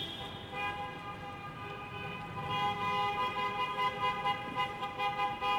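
Car horns honking in a traffic tunnel: long held blasts with several steady pitches sounding together. They start about half a second in and are loudest in the second half, over the low rumble of traffic.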